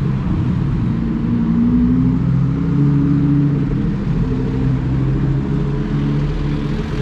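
Lamborghini supercar engine running close by with a deep, steady note, its pitch rising slightly about two seconds in.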